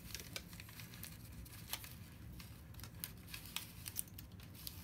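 Paper song roll of a PlaRola roll organ being wound by hand onto its spindle: soft paper rustling with scattered light clicks and taps.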